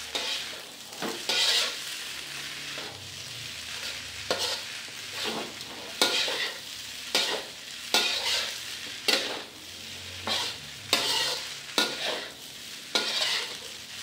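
Fried rice being stir-fried in a wok: a metal spatula scrapes and knocks against the pan every second or so, over a steady sizzle.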